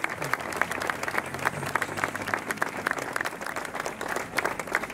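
Applause from a small group of people, with individual hand claps distinct.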